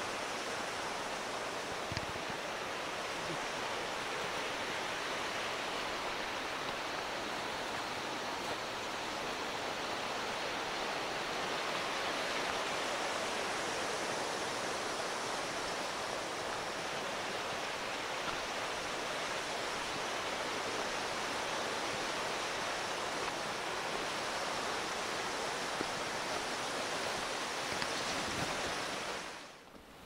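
Steady rushing of the Taurach, a mountain river flowing beside the path, fading out near the end.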